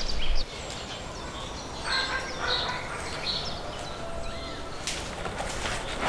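Birds calling and chirping, several short calls spread over the few seconds. Near the end comes a dry, crinkly rustle of thin lavash flatbread being folded by hand.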